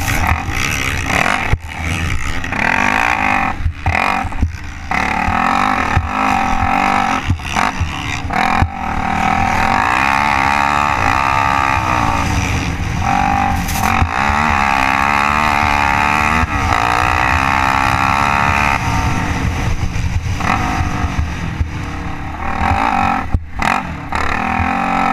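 Can-Am DS 450 ATV's single-cylinder four-stroke engine revving up and down through the gears under hard riding, held at high revs for several seconds in the middle.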